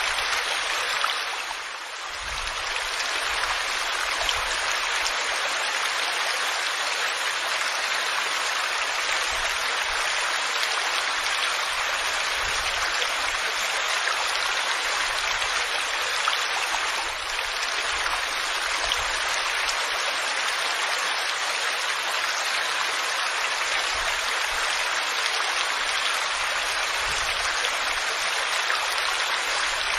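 Waterfall rushing steadily, an even noise of falling water that dips briefly about two seconds in and again a little past the middle.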